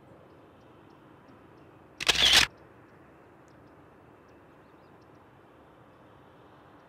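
A camera shutter sound effect: one short, loud burst of clicks lasting about half a second, about two seconds in, over a faint steady outdoor hiss.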